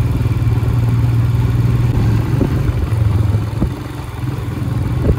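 Royal Enfield Himalayan 411cc single-cylinder motorcycle engine running steadily while riding, with a few short knocks.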